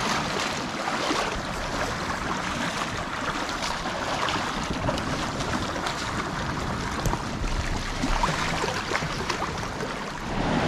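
Steady wind and small waves washing over a rocky, shallow shoreline, with wind buffeting the microphone.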